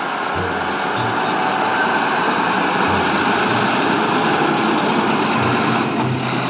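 Truck engine running steadily, a dense rushing noise with a low hum that swells and drops several times.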